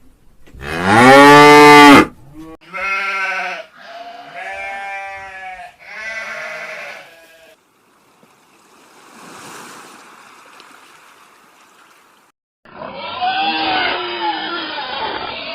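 A series of farm animal calls. A loud, drawn-out cow moo comes about half a second in. Four shorter, higher bleats follow, then a quieter breathy noise, and a rougher, noisier animal call in the last few seconds.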